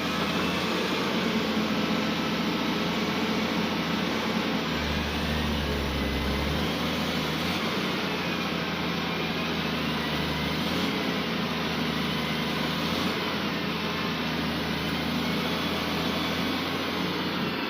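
Volvo EC330BLC excavator's diesel engine running steadily under working load, with a high whine that rises and falls as the hydraulics are worked while digging.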